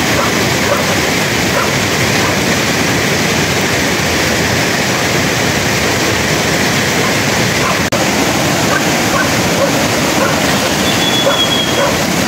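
Steady rushing noise of running water, with a brief high chirp near the end.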